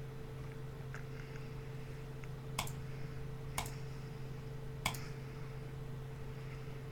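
Three short, sharp clicks and a few fainter ticks from trading cards and their holders being handled, over a steady low electrical hum.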